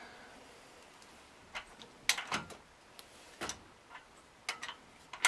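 Sharp, irregular clicks of a socket ratchet turning a Gen 4 LS V8 over by hand, bringing the timing-gear dots together at top dead center on cylinder one. The clicks come in ones and twos, about nine in all.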